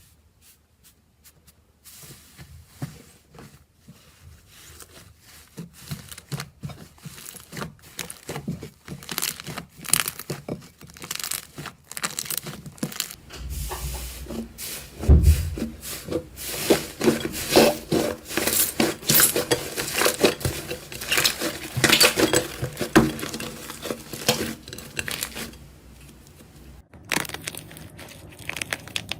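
Slime being squeezed and pressed by hand, giving a stream of sticky crackles, clicks and pops. The sound starts about two seconds in, gets denser and louder partway through, and eases off near the end.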